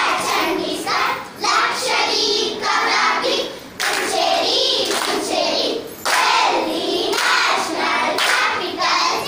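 A group of young girls singing together in unison, in short phrases with brief breaks between them.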